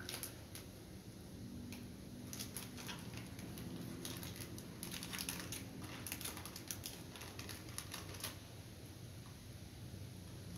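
Plastic snack wrapper crinkling in irregular clusters of sharp crackles as it is opened and eaten from, busiest in the middle and thinning out near the end.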